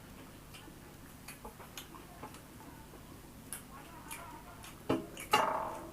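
Close-up eating sounds: soft, scattered clicks of chewing and lip smacks from a meal of mutton curry and rice eaten by hand. Near the end there are two louder mouth sounds, the second longer.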